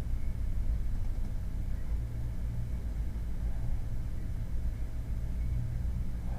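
A steady low rumble, mostly deep hum and noise with little higher sound, unchanging throughout.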